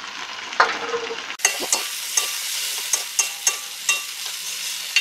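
Chopped tomatoes sizzling in hot oil and butter in a metal wok, with a spatula scraping and clicking against the pan as it stirs them. The sizzle grows louder about a second and a half in.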